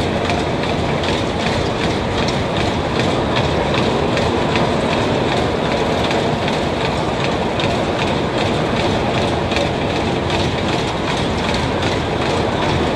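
A spinning carnival ride's cars running fast around their circular track close by: a steady rumbling rattle of wheels on rails, with quick regular clacks.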